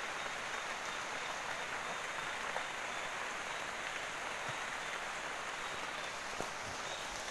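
Light rain, a drizzle, falling steadily on the leaves of banana plants and palms: an even hiss with a few faint single-drop ticks.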